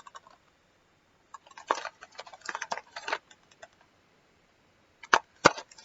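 Small plastic makeup packaging handled: eyeshadow singles clicking and rattling against each other for about two seconds, then two sharper clicks near the end.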